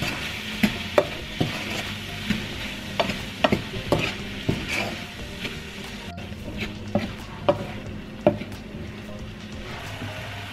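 Diced apples frying with sugar in a non-stick pan: a steady sizzle, with a wooden spatula stirring and knocking against the pan in irregular clicks. The knocks thin out and stop a couple of seconds before the end, leaving the sizzle.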